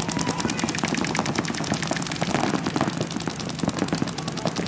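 Paintball markers firing rapid, unbroken strings of shots, a fast popping with no pauses.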